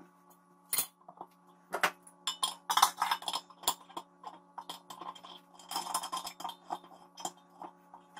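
Stainless steel fittings clinking and knocking against a stainless kettle lid as a hose fitting is worked onto the lid's port: a string of irregular sharp metallic clinks over a steady low hum.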